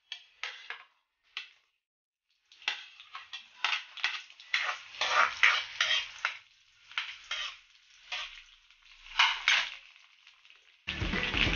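Sliced onions sizzling in hot oil in a wok while a spatula stirs and scrapes them against the pan, in repeated short strokes a few times a second. Music starts near the end.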